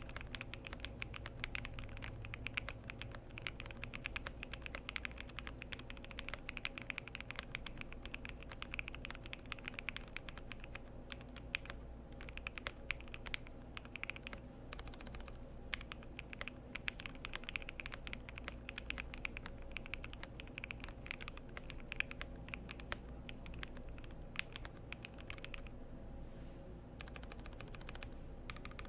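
Continuous fast typing on a FinalKey v65 custom mechanical keyboard. The board is gasket-mounted in a foam-filled aluminium case, with lubed Jwick Yellow v2 linear switches on a PC plate and PBT keycaps. The keystrokes come as a dense, irregular stream of clicks, thinning briefly near the end.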